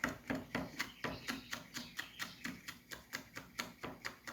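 Knife chopping hot pepper on a cutting board in a steady rhythm, about four chops a second.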